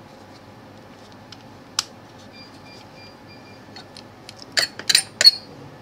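Sharp clicks and light clatter of tools being handled on a workbench: a single click about two seconds in, then a quick cluster of louder clicks near the end. A faint run of short high beeps comes in between.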